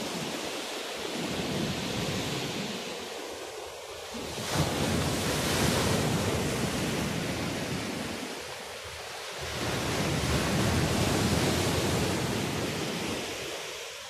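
Black Sea waves breaking on a pebble beach and washing back, coming in three swells a few seconds apart, the loudest crashing in about four and a half seconds in.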